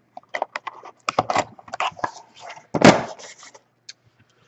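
Hands handling a trading-card box and a hard plastic card case: short rustles, scrapes and light clicks, with one louder sharp sound just before three seconds in.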